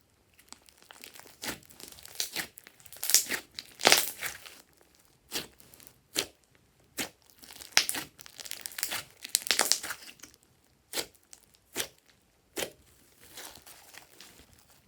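Glossy slime being squeezed, stretched and pressed by hand, giving irregular sharp pops and crackles as air pockets burst, with some short squishy crackling runs between them.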